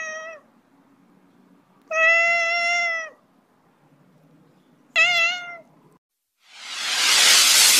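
A cat meows three times: a short call at the start, a longer drawn-out one about two seconds in, and a brief wavering one about five seconds in. Near the end a loud whoosh of noise swells up.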